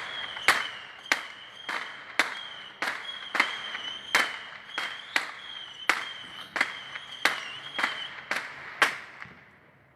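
A run of sharp firecracker bangs from neighbours' rocket firecrackers, about two a second, stopping shortly before the end. A steady high whistling tone runs underneath.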